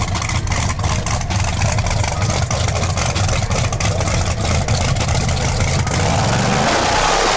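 Race engine of a Chevrolet S-10 pickup drag truck idling with a loud, pulsing low rumble as the truck rolls slowly forward; near the end the rumble thins and a hissier sound builds.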